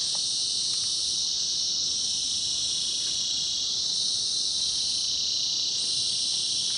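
Insect chorus in forest: a steady, high-pitched drone that barely changes, swelling slightly about halfway through.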